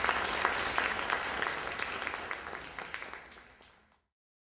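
Audience applauding after a speech, fading out to silence about four seconds in.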